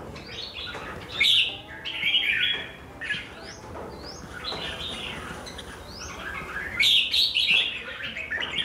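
Caged red-whiskered bulbuls singing: short, bright warbled phrases repeated one after another, loudest about a second in and again toward the end.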